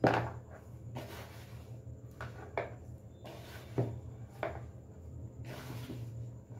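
Hand mixing wheat flour and maida with water into a crumbly dough in a plastic bowl: irregular rubbing and pressing strokes, with a few sharper knocks of the hand against the bowl, the loudest at the very start and about four seconds in.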